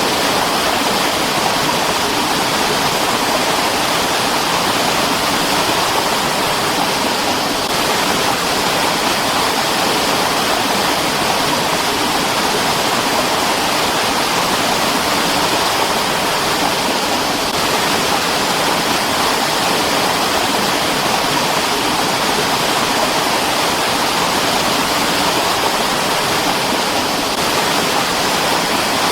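Mountain stream flowing: a steady, unbroken rush of water, strongest in the upper hiss rather than a low rumble.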